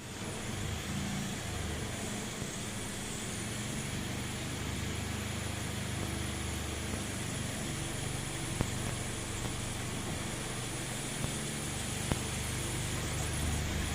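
Toyota Wish running with its engine humming steadily under a hiss, and a few sharp ticks now and then: the abnormal noise from a faulty exhaust pipe.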